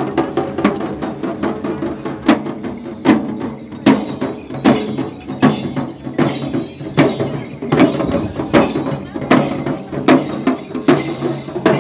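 Jhankri shaman's dhyangro frame drum beaten with a curved stick in a steady beat, a little more than one stroke a second, over a steady low drone.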